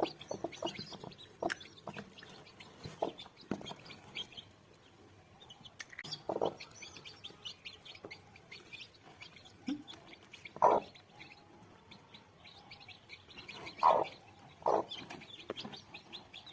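Newly hatched chicks peeping in many short high chirps. Four times a hen breaks in with a louder, lower cluck.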